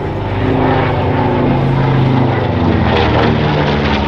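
North American B-25 Mitchell's twin Wright R-2600 radial engines running loudly as the bomber flies overhead, the engine note slowly dropping in pitch as it passes.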